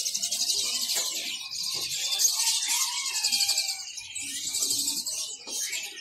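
Many small caged birds chirping and twittering at once, a dense, high-pitched chatter of rapidly repeated calls.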